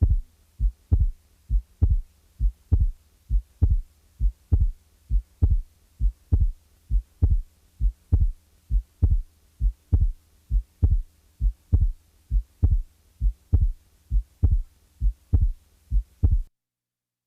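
Recorded heart sounds played for auscultation training: a regular series of short, low thumps from a beating heart over a faint steady hum. The thumps stop shortly before the end.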